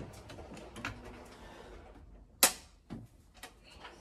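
Light clicks and taps of a screwdriver and parts being worked inside a Vaillant boiler's casing, with one sharp click about two and a half seconds in and a softer one just after.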